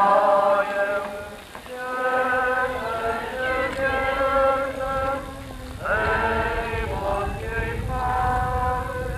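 Slow sung liturgical chant: long held notes in a plain melody, phrase after phrase with short breaks between them.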